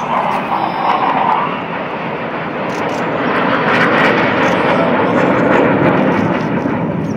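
Fixed-wing aircraft flying past in an air-show flypast: a rushing engine noise that grows louder to a peak about four to six seconds in.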